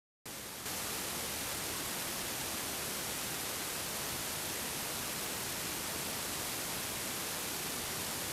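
Steady, even hiss of static with no other sound in it, starting abruptly a fraction of a second in and stepping up slightly just after.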